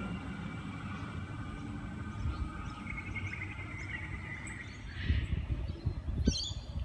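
Sydney Trains Waratah electric train pulling away into the distance, its hum fading, with birds chirping. Low rumbling buffets on the microphone come a little after halfway.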